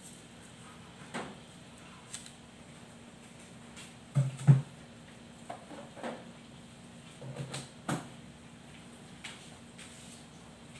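Scattered short knocks and thuds, like cupboard doors or drawers being handled. The loudest pair comes about four seconds in, with another cluster near eight seconds, over a faint steady hum.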